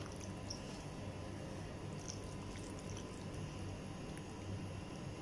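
Faint wet squishing of a hand kneading raw chicken pieces through a thick spiced marinade in a bowl, with small scattered squelches over a steady low hum.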